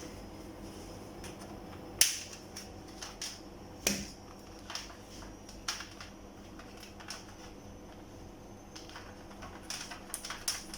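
Scattered sharp clicks and taps of multimeter test probes touching the LEDs on a TV backlight strip, with the loudest click about two seconds in and a quick run of taps near the end.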